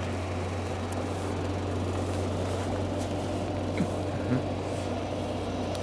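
Steady low drone of diesel truck engines running, with a couple of faint short sounds about four seconds in.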